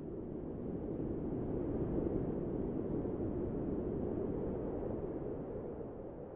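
A steady, low rushing noise with no clear pitch, like a wind or ambient rumble bed, fading out near the end.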